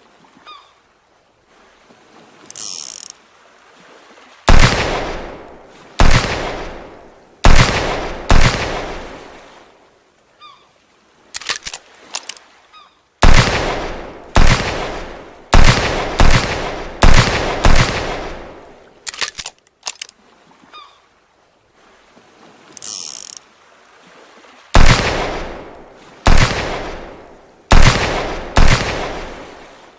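Handmade revolver gunshot sound effect: groups of sharp shots, each with a long fading echo, about four shots, then a quicker run of about eight, then four more. Small clicks, like the hammer being cocked, come between the groups.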